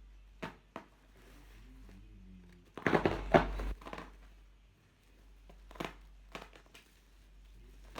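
Packaging crinkling and rustling as a parcel is handled and opened: a few short crackles, a louder burst of crinkling about three seconds in, then more crackles.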